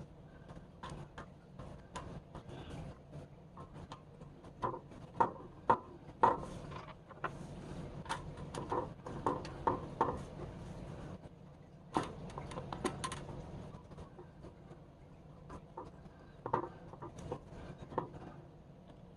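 Irregular clicks, taps and knocks of hard objects being handled and set down on a workbench, over a low steady hum. The knocks are loudest and most frequent from about four seconds in until about thirteen seconds in.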